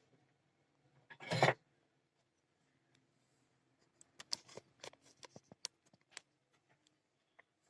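Handling noises on an electronics repair bench: a short rustle about a second in, then a run of light clicks and taps.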